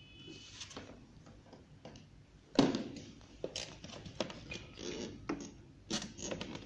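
Handling noises from fitting a ceiling light's mounting board and screws: a sharp knock about two and a half seconds in, then scattered clicks, taps and rustling.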